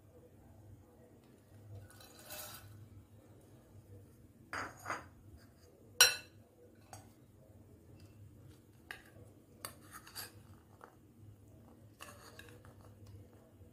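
Metal spoon clinking and scraping against a glass mixing bowl and a ceramic bowl as salad ingredients are spooned in: a handful of separate short clinks, the sharpest and loudest about six seconds in.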